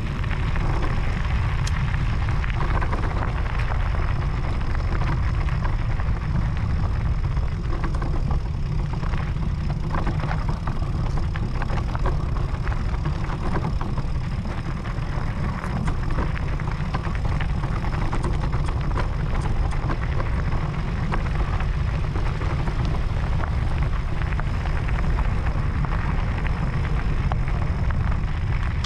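Wind buffeting the microphone of a camera on a moving e-mountain bike, a steady low rumble, with the tyres crunching and rattling over a loose gravel track.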